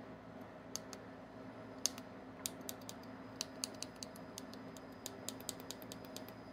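Small tactile push buttons on an OnStep hand controller clicking as they are pressed: a few separate clicks, then a quick run of about three to four presses a second from about two and a half seconds in.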